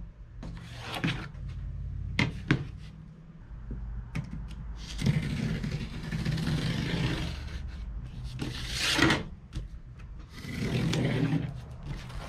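Utility knife cutting through corrugated cardboard along a steel ruler: three long scraping cuts in the second half, after a few light clicks and taps of tools being set on the bench. A steady low hum runs underneath.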